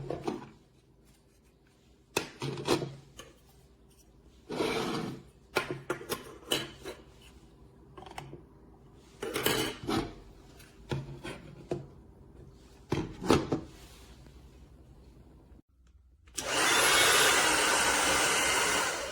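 Several short rubbing and handling noises, spread a second or two apart. Near the end a CONFU 1600 W ionic hair dryer switches on and blows steadily for about three seconds.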